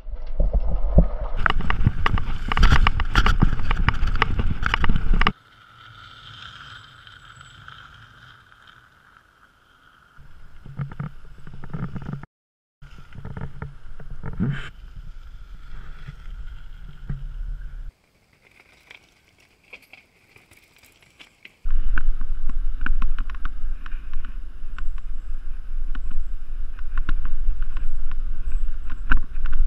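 Action-camera audio from mountain bikes riding forest trails: wind buffeting the microphone and the rattle and clatter of the bike over gravel and wooden boardwalk planks. The sound cuts between several shots, loud at the start and again after about twenty seconds, with quieter stretches between.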